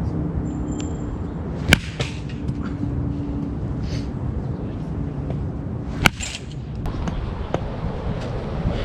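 A baseball bat hitting pitched balls in batting practice: two sharp cracks about four seconds apart, with a few fainter clicks near the end.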